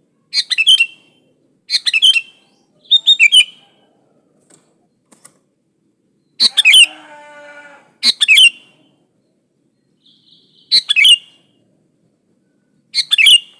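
Sooty-headed bulbul (kutilang) singing: seven short, bubbly whistled phrases spaced one to two and a half seconds apart, with a longer harsh, buzzy note after the phrase in the middle.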